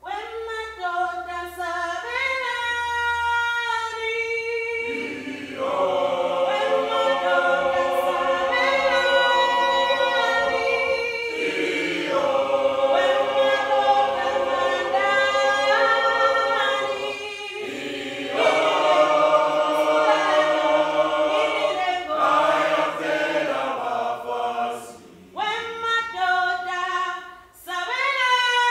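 Choir singing a cappella in harmony. The singing starts suddenly, fills out into fuller many-voiced chords about five seconds in, and breaks off briefly a few times between phrases.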